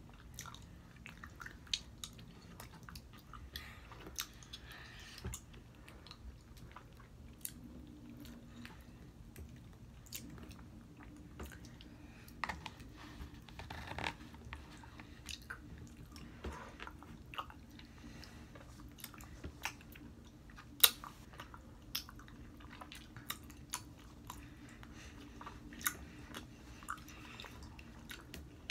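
Gummy bears being chewed close to the microphone: wet smacking and clicking mouth sounds at an irregular pace, with one sharper click about two-thirds of the way through.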